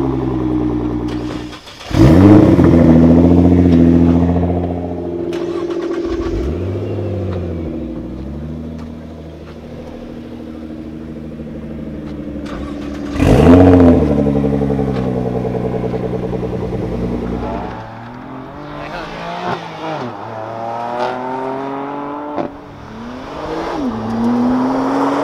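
Nissan GT-R R35 twin-turbo V6 engines revving: a series of sharp blips that rise and fall, the loudest about two seconds in and again about thirteen seconds in. Later, one GT-R accelerates hard past with its pitch climbing, dropping once for an upshift near the end and climbing again.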